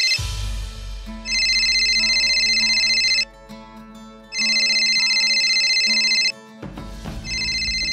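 Smartphone ringing with an incoming call: an electronic ringtone in bursts of about two seconds with a pause of about a second between, three times, over a soft musical score.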